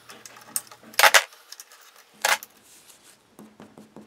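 Metal three-way edge clamps clinking as they are loosened and lifted off the tabletop edge: sharp metallic clanks about a second in, the loudest, and again just after two seconds, then light handling sounds.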